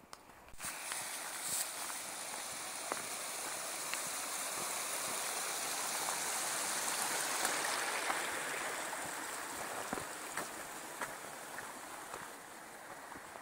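Small mountain stream trickling and splashing over rocks, growing louder to a peak about halfway through and then fading away, with scattered footsteps on a rocky path.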